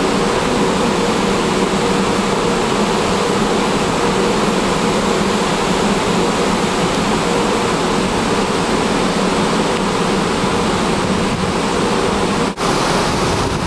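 Steady rushing noise of wind and water heard from aboard a moving boat, with a faint engine hum underneath; it drops out for a moment near the end.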